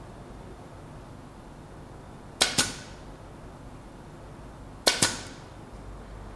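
Bostitch nailer firing twice, about two and a half seconds apart, driving nails into a glued oak strip on a wooden frame; each shot is a sharp double crack.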